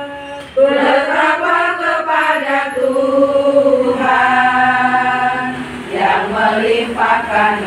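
A group of women singing a march together in unison, holding long notes; after a brief breath pause about half a second in, the voices come back in at full strength.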